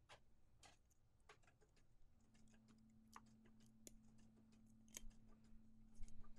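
Faint, scattered clicks and taps of fingers handling a ceramic mug and smoothing heat tape onto its paper wrap. A faint steady hum comes in about two seconds in.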